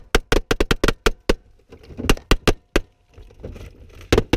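Handgun shots fired inside a car's cabin, up into the roof: a rapid string of about ten shots in the first second and a half, a few more around two seconds in, and two or three more near the end.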